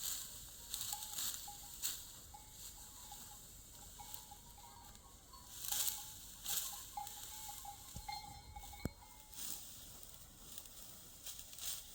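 Irregular dry rustling and crunching, a stroke every second or so, with a faint thin tone coming and going in the middle.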